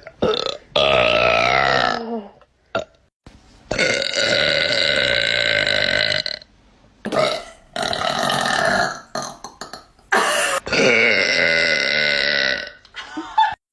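A girl burping repeatedly: four long, drawn-out burps, the longest lasting nearly three seconds, with short pauses and a few small sounds between them.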